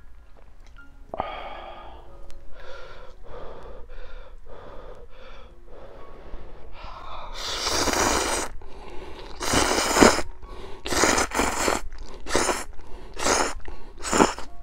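A person slurping hot ramen noodles in crab stew broth: softer breathy sounds at first, then a run of loud, short slurps in the second half.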